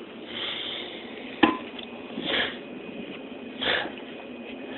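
Kitchen handling noises while a raw turkey is worked by hand: one sharp knock about a second and a half in, and three short hissing noises spread through the rest.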